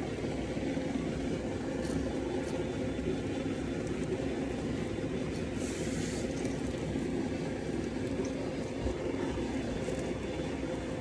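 A steady, low mechanical hum from a motor runs unchanged throughout, with a brief hiss about six seconds in.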